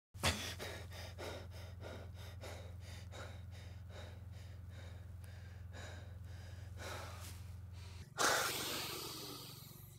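A man breathing hard and fast through his open mouth, in quick rasping breaths, then a loud sharp gasp about eight seconds in that trails off.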